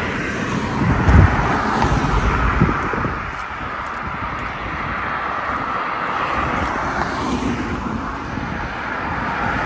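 Road traffic noise: cars passing with a steady hiss of tyres, and a deeper rumble about a second in.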